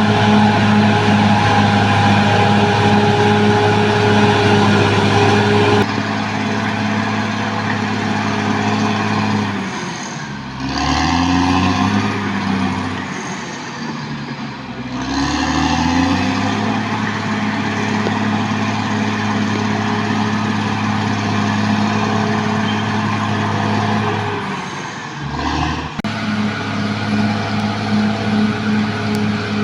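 Caterpillar D6R XL bulldozer's diesel engine running steadily, its pitch sagging and coming back up twice, about a third of the way in and again about halfway.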